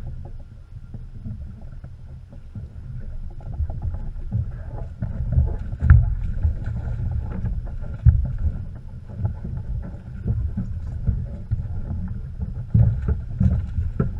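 Wind rumbling on the microphone over water splashing at the side of a small boat as a hooked shark thrashes alongside. Several sharp knocks against the boat, the loudest about six and eight seconds in.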